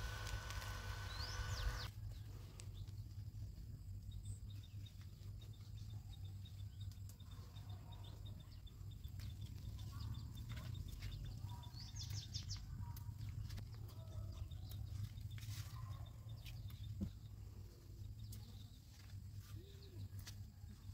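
A small handheld fan whines steadily and cuts off about two seconds in. Then bean vines rustle and pods snap as yardlong beans are picked by hand, with scattered clicks over a low steady rumble and a few bird chirps near the middle.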